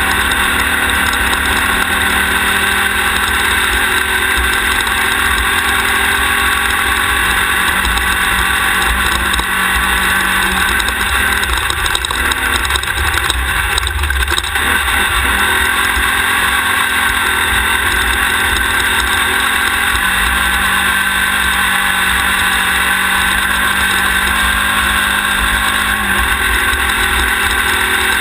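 Off-road race car's engine running hard at speed over rough desert terrain, with heavy road and wind noise. The engine note shifts a little a few times.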